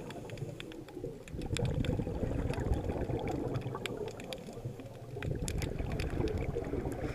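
Underwater sound picked up through a GoPro housing: a low rumble of moving water that swells and fades twice, with scattered sharp clicks and crackles.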